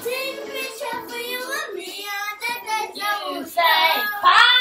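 A group of children singing loudly together, with two loud held notes near the end.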